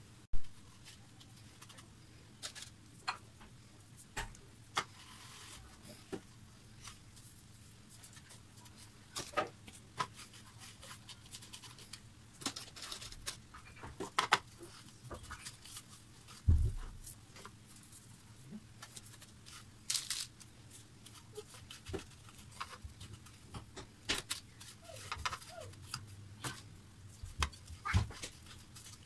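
Hands rubbing cut lemon quarters in a plate of coarse salt, with gritty scraping and scattered clicks of salt grains. There are soft knocks as salted lemons are packed into a plastic tub, and one heavier thump a little past the middle, while lemons are being salted for preserving.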